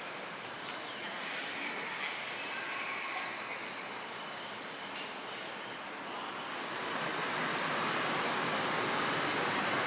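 Train running at a station, its running noise building over the last three seconds as it draws nearer. A thin high steady tone sounds for the first three seconds, then drops away.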